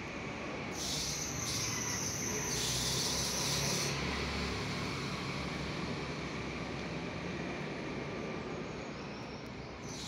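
An insect's steady high-pitched buzz starting about a second in and stopping about four seconds in, over a constant outdoor background rumble.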